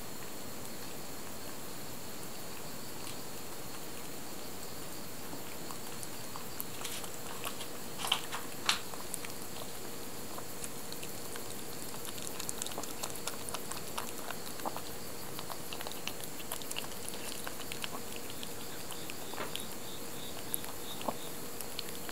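Siamese kittens lapping raw egg from a plate: faint, quick, irregular wet tongue clicks that begin about six seconds in, with two louder clicks around eight seconds, over a steady hiss.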